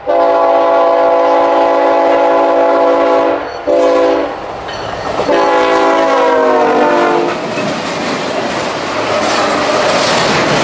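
Diesel freight locomotive horn sounding three blasts, long, short and long. The rumble and wheel clatter of the train going by then swell up.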